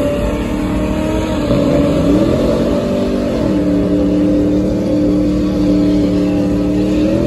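Pickup truck engine revving hard during a burnout, its tires spinning in a cloud of tire smoke. The revs dip briefly about a second and a half in, then climb and hold high and steady until just before the end.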